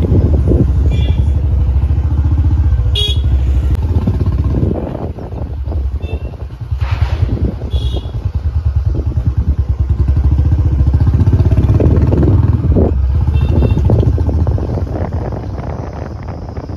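Motorcycle riding along a road, heard from the pillion seat: a continuous low engine-and-wind rumble. Short vehicle-horn toots sound about five times.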